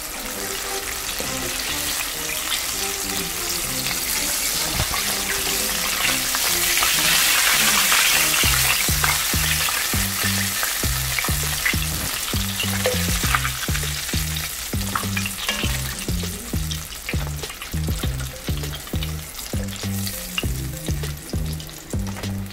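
Battered oyster mushrooms deep-frying in hot oil: a dense, steady sizzle, loudest several seconds in, with light clicks of metal tongs working in the pot. Soft background music with a low, stepping bass line runs underneath.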